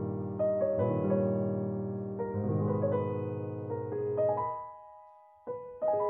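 Background piano music: slow chords struck and left to ring and fade, with a short lull about five seconds in before new notes come in.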